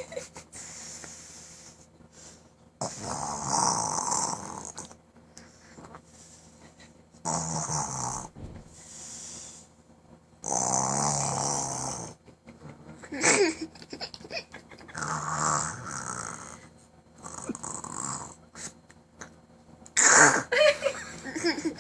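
A person snoring heavily in their sleep: a series of snores every few seconds, each lasting about one to two seconds.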